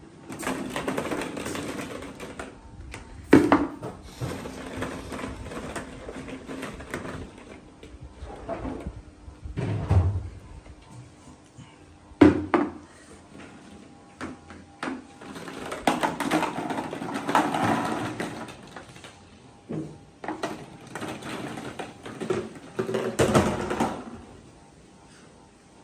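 Hollow plastic play balls clattering and rattling as they are tipped from one plastic bucket into another, in several spells, with a few sharp single knocks.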